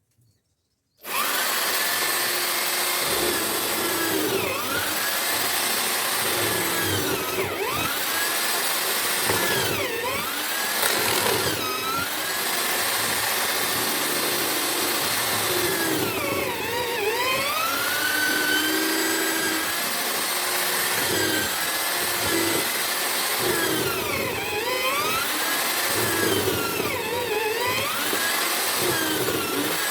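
Homemade drill-powered mortiser starting up about a second in and running continuously. Its motor pitch sags and recovers every few seconds as the chisel is plunged into the timber under load.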